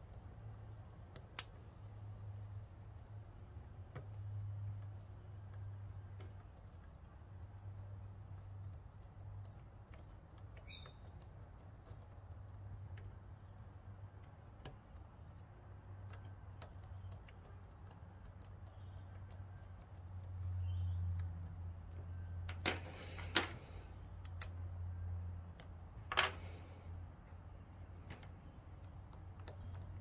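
Faint, scattered metallic clicks and small scratches of a lock pick working the pins of a Van Lock push-pin padlock, with a few louder scrapes about two-thirds of the way through. A low steady hum runs underneath.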